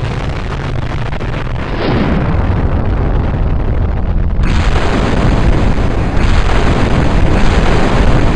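Loud, continuous rumbling blast noise of explosions, getting louder and changing abruptly about two, four and a half, and six seconds in.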